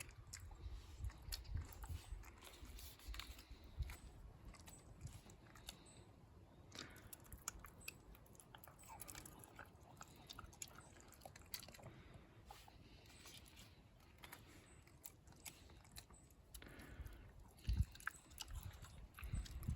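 Shiba Inu chewing food, a faint run of small mouth clicks and smacks, with a louder low thump near the end.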